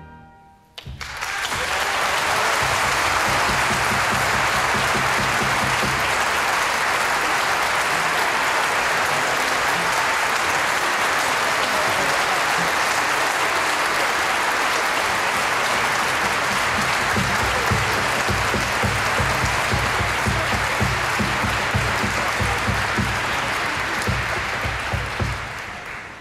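Large concert-hall audience applauding. It starts about a second in, after a brief hush, holds steady and then dies away near the end.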